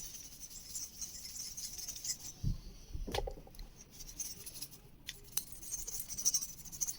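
Light rubbing and scrubbing as a PC cooling fan is cleaned, with a couple of soft knocks about two and a half and three seconds in and a few small clicks later.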